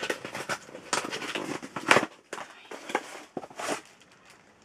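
Cardboard box being opened by hand and a plastic bag pulled out of it: irregular crackles, rustles and scrapes of cardboard and plastic packaging, with a sharp crack just under two seconds in.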